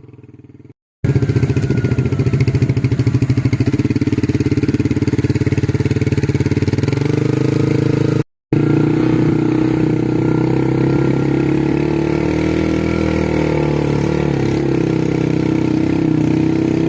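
Small motorcycle engine running at a steady pace as the bike is ridden, its pitch wavering slightly with speed. The sound drops out completely twice, briefly, about a second in and about halfway through.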